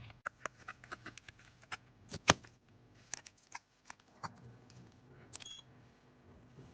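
Irregular small clicks and taps of hand tools and parts against an iPhone during a screen repair, with one sharper click about two seconds in.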